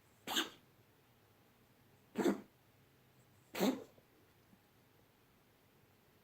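A pet's coughing fit: three short, separate coughs, the second about two seconds after the first and the third a second and a half later.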